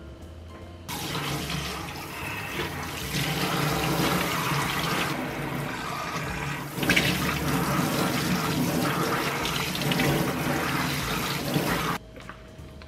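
Kitchen tap running into a stainless steel sink, the stream splashing over a squid as it is rinsed and cleaned by hand. The water comes on abruptly about a second in and cuts off sharply near the end.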